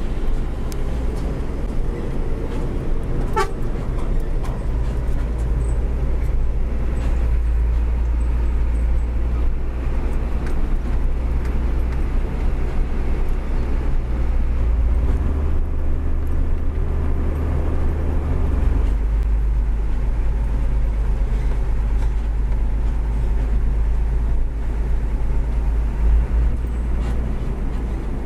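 Hino 500 truck's diesel engine heard from inside the cab while driving, a steady low drone. Its pitch and level shift a few times as the truck changes speed or gear.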